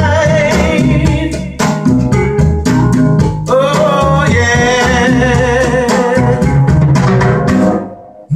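Recorded music played back through Western Electric 16A horn loudspeakers: a song with a singing voice over a steady beat of drums. The song fades away near the end.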